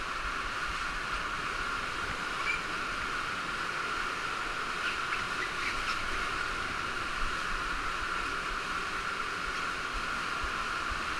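Steady rush of a cave stream and its small waterfall, with a few faint clicks about halfway through.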